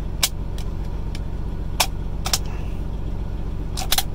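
A handful of sharp plastic-and-metal clicks as the safety and action of a 3D-printed KG-99 (Tec-9 style) pistol are worked by hand. Under them runs the steady low hum of an idling semi-truck diesel engine.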